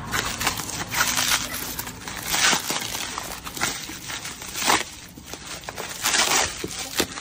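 Plastic bubble wrap and packing tape crinkling and rustling as a parcel is unwrapped by hand, with irregular handling noise and a few louder crackles about two and a half, four and a half and six seconds in.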